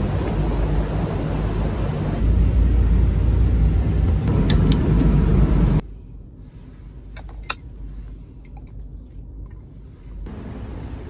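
Loud, low rumbling ambience of a parking garage picked up by a handheld phone while walking, then, after an abrupt cut about six seconds in, the much quieter inside of a parked car with a couple of sharp clicks.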